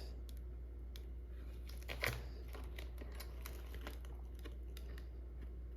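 Faint small clicks and crinkles of a plastic screen-protector film being pried up off scanner glass with a razor blade, over a steady low hum. One slightly louder click about two seconds in.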